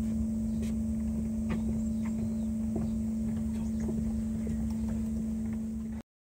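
Steady low hum with a few faint ticks and rustles, cutting off abruptly about six seconds in.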